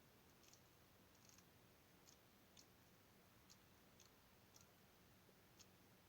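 Faint, sharp little clicks and pops at uneven intervals, about one every half second to second, from slime being pressed with the fingers, its trapped air popping.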